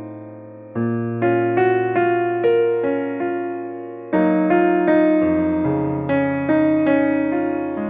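Background piano music: a slow melody over chords of struck notes, each fading after it is played.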